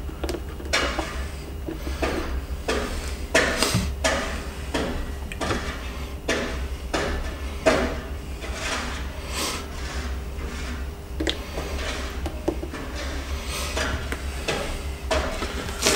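Irregular clicks, taps and light knocks of plastic parts and tools being handled during a glue repair, over a steady low hum.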